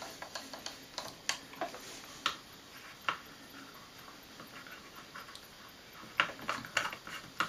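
Wooden screwdriver turning wooden screws into a polished cherry wood toy, with scattered light wooden clicks and knocks and a quick run of them near the end.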